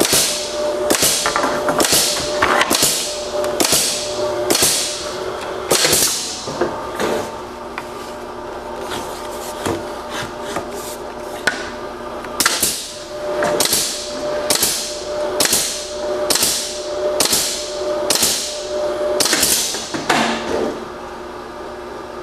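Norfield 450FTS flow-thru stop stitcher running a cycle: its pneumatic nail guns fire one shot after another, a little more than once a second, each shot trailing off in a short hiss, over a steady machine hum. The nailing stops for a few seconds about a third of the way in, then starts again and runs until near the end.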